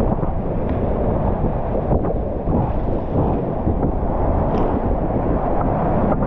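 Steady rushing of a whitewater river at high flow, with wind buffeting the microphone.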